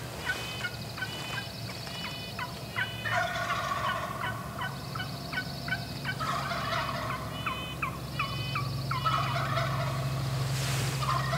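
Wild turkey gobbler gobbling repeatedly in rapid runs of notes, its voice sounding hoarse, as if it is losing its voice.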